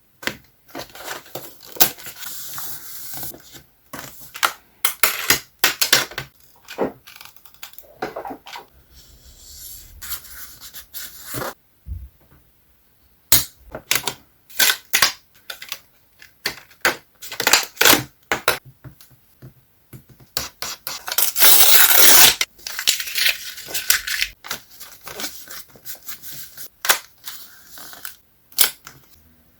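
Paper and scrapbooking materials handled close to the microphone: rustling and crinkling with many short taps and clicks, and one longer rasping stretch about two-thirds of the way through.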